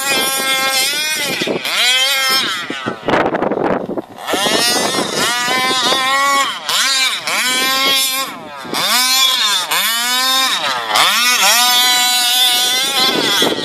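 29cc two-stroke petrol engine of a 1/5-scale Rovan Baja 5B RC buggy running hard, its pitch climbing and dropping again and again as the throttle is opened and let off every second or two. About three seconds in, the engine note briefly gives way to a noisy rush.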